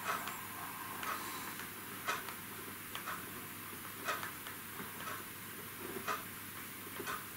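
A clock ticking about once a second, every other tick louder, over a faint steady hiss.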